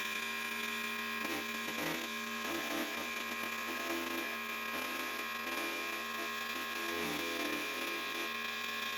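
Defu 368A key-cutting machine's electric spindle motor running with a steady hum while its milling bit cuts a household key blank.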